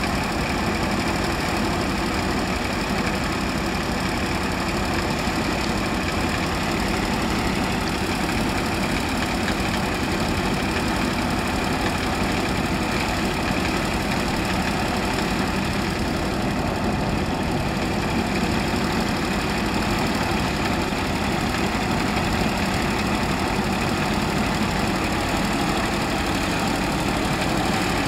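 Hovercraft engine idling steadily, driving the ducted propulsion fan at low speed.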